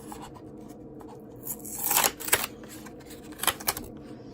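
Plastic blister pack being opened by hand: short bursts of crinkling and tearing, loudest about two seconds in, with a second burst a little later.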